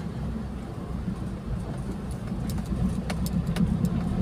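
Vehicle engine and road noise heard from inside a moving car: a steady low hum, with a few faint clicks from about halfway through.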